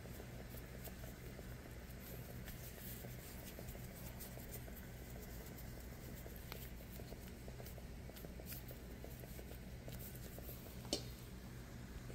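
Faint pattering of a pot of water boiling with dumplings and green bananas, over a low steady hum. A single light click near the end.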